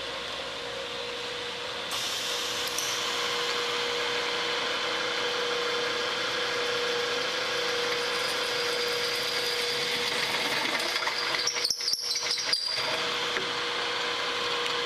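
AutoDrill two-axis drilling machine running, its spindle motor humming steadily as the drill bit cuts holes in an aluminium extrusion. The cutting gets louder about two seconds in, with a brief uneven stretch about twelve seconds in.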